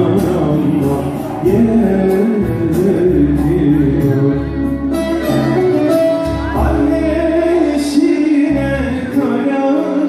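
Live Turkish folk music on violin, long-necked bağlama and electronic keyboard, with low bass notes under the melody and a man singing.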